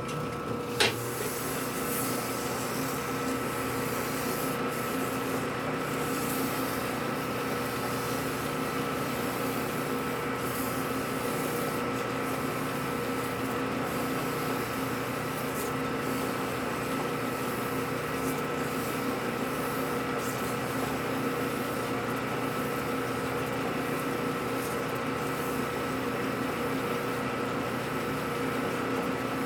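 Metal lathe running steadily with a constant whine of several fixed tones, while a strip of fine abrasive paper is held against the spinning workpiece to smooth its turned surface. A single click comes about a second in.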